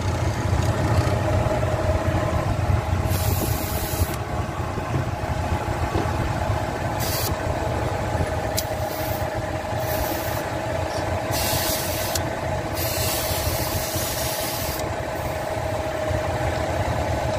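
Car engine idling with a steady drone, broken by several separate bursts of hissing as the hose of a refrigerant can is fitted to the A/C low-pressure port. The hissing is refrigerant escaping at the coupling, the last burst lasting about two seconds.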